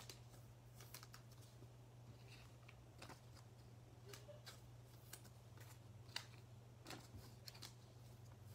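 Faint, scattered clicks and taps of trading cards being handled and stacked on a table, over a steady low hum.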